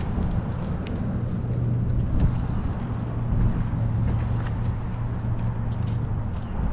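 Steady low rumble of a car driving, heard from inside the cabin: engine hum and tyre and road noise.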